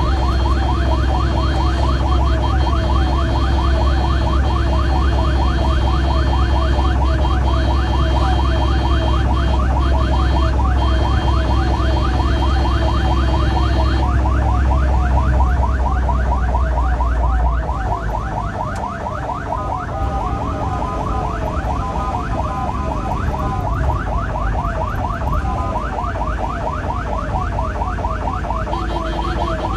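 Ambulance's electronic siren in a fast yelp, rapid rising sweeps repeating several times a second, over engine and road noise heard from inside the cab. The low rumble eases a little past halfway through while the siren keeps going.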